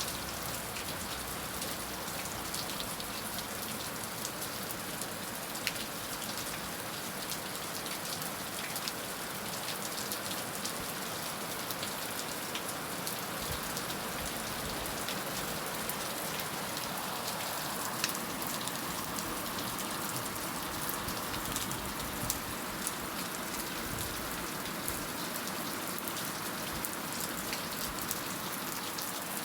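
Heavy rain falling steadily on a surface, a dense hiss with many sharp drop ticks through it.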